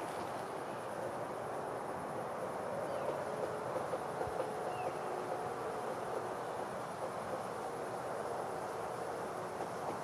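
Steady rush of river water, with a faint high chirring of crickets in the background.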